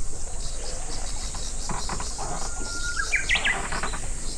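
Insects droning in a steady, high, even buzz, and a bird singing about two seconds in: one long held whistle followed by a quick higher, trilled flourish.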